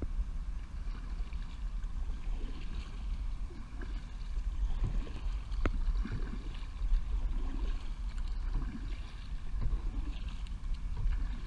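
Kayak paddle strokes swishing and dripping in calm water over a steady low rumble, with one sharp click near the middle.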